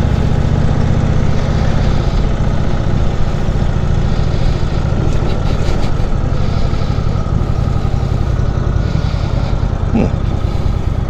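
Indian Chief Vintage's V-twin engine running at a steady pitch as the motorcycle is ridden.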